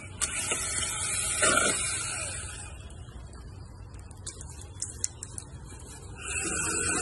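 Powerworks 60V brushed-motor cordless pole saw running with a steady whine from its motor and chain. It winds down about two and a half seconds in, a few light clicks follow, and the saw starts up again about six seconds in.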